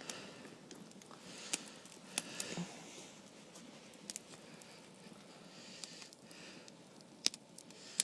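A straw-fed campfire burning, with scattered sharp pops and crackles over a soft hiss. The logs are damp and only just catching.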